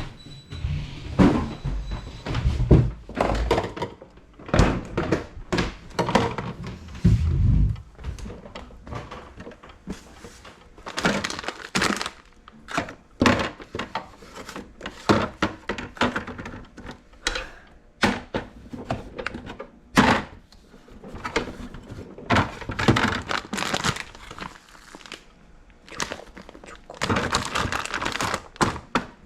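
Irregular knocks, clicks and low thumps of household items, containers and kitchenware being handled and set down, mixed with stretches of rustling and scrubbing noise.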